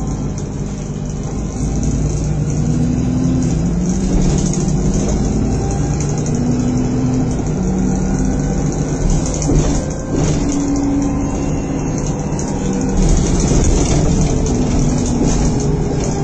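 Diesel engine of a Stagecoach bus heard from inside the passenger saloon, pulling through its gears so that the engine note steps up and down several times. A short knock comes about ten seconds in, and the note falls near the end.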